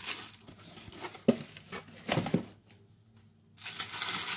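Plastic bag lining crinkling as it is peeled off a slab of homemade soap, with one sharp knock about a second in.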